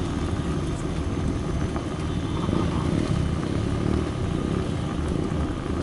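Steady low rumble of a motor scooter cruising along, mixed with wind buffeting the microphone.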